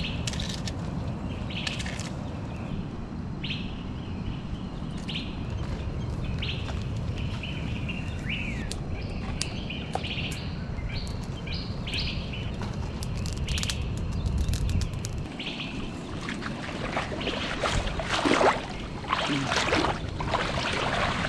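Small birds chirping in short repeated calls over a steady low rumble. In the last few seconds, water sloshes and splashes as a palm frond is dunked in seawater.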